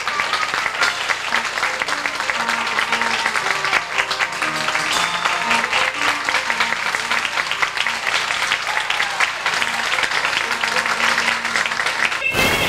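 Audience applauding over recorded music playing a simple melody of held notes. A short burst of noise comes near the end, where the videotape recording breaks off.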